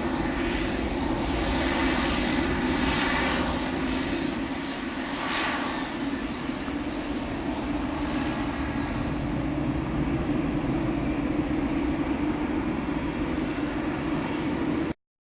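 Boeing 737-700's CFM56 turbofan engines, a steady jet engine noise that swells and fades a little in the first few seconds, then cuts off suddenly near the end.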